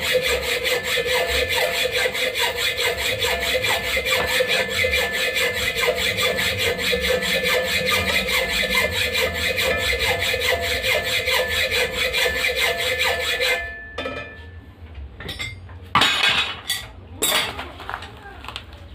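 Hand hacksaw cutting through steel in steady, rhythmic back-and-forth strokes, stopping abruptly about fourteen seconds in. A few short knocks and clanks follow, one of them loud.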